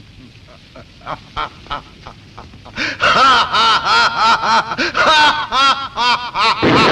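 A man laughing: a few quiet chuckles, then from about three seconds in a loud, rapid cackle of short ha-ha bursts. Near the end a loud rushing blast of noise cuts in over it.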